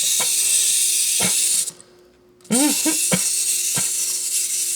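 A steady high hiss that drops out for about a second near the middle and then returns, with a few light clicks.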